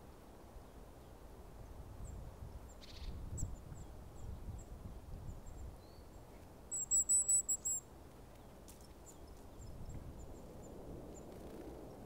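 Small songbird calling in the winter woods: a quick run of about six high, thin notes about seven seconds in, with scattered fainter high chips before and after.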